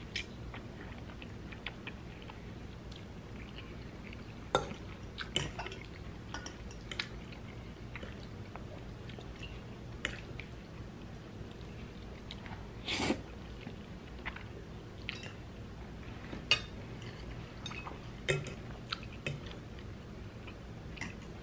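Close-up chewing of spaghetti, with a metal fork now and then clicking and scraping against the bowl; the sharpest clink comes about halfway through.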